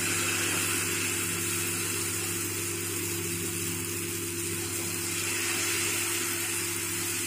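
Batter-coated sweet green gram balls deep-frying in hot oil in a steel pot: a steady hiss of sizzling oil, with a steady low hum underneath.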